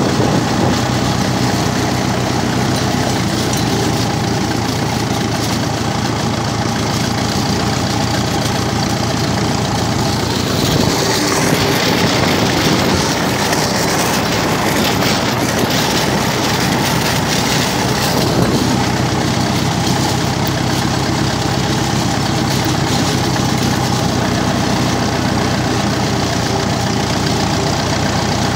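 Massey Ferguson TEF-20's four-cylinder diesel engine running steadily as the tractor drives along, pulling a tyre-and-pallet drag over a gravel road. A rougher hiss of gravel scraping comes up from about eleven seconds in and eases off by about eighteen seconds.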